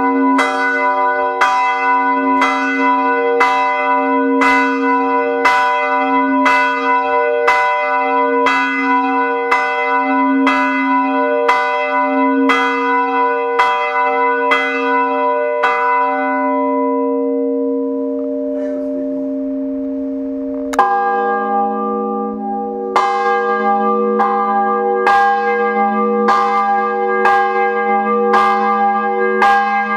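Swinging bronze church bell, the 215 kg King St Stephen bell tuned to C-sharp, struck by its clapper about once a second with a long ringing tone; about halfway through the strokes stop and the ring fades to a hum. About two-thirds in, a deeper-pitched bell starts swinging and striking at a similar steady pace.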